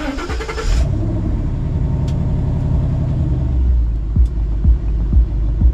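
Shelby Cobra V8 starting: a brief high starter whine in the first second, then the engine catches and settles into a steady idle, with a few short low thumps in the last two seconds.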